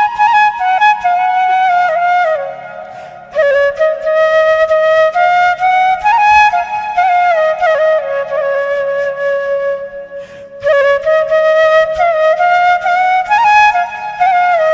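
Background music: a slow solo flute melody, gliding between notes in phrases, with short breaks about three seconds in and again near ten and a half seconds, over a faint steady low drone.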